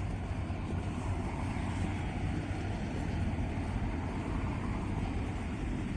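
Steady outdoor ambience of road traffic: an even, low rumble with no distinct events.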